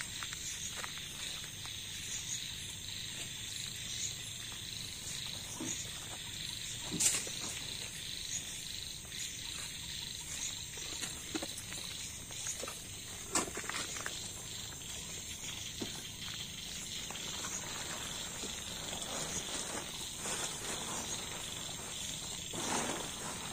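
A steady night chorus of crickets and other insects, a constant high trill, with scattered clicks and rustles of a plastic tarp and camping gear being handled, the rustling heavier near the end.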